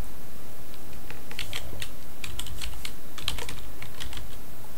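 Computer keyboard keys clicking in quick, irregular succession as a web address is typed, starting about a second in.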